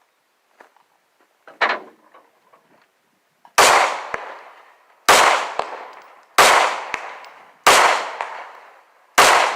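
Glock 26 9mm pistol fired five times, about one and a half seconds between shots, each shot trailing off in a long echo. A faint click comes about a second and a half in, before the first shot.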